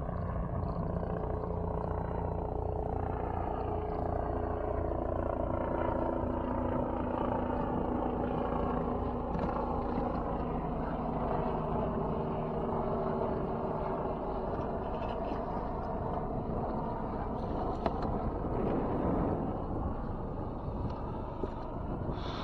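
Boat motor running steadily under way, its pitch drifting slowly up and down.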